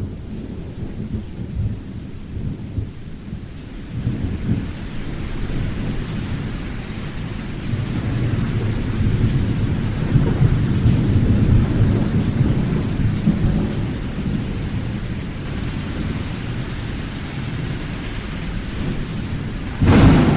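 Thunderstorm: steady rain hissing under low rolling thunder that swells and fades several times, with a sharp, loud thunderclap near the end.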